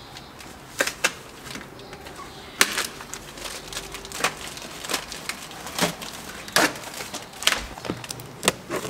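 Plastic wrapping being pulled and torn off a large cardboard box, with irregular sharp crackles and rips. Near the end a blade cuts through the packing tape on the cardboard.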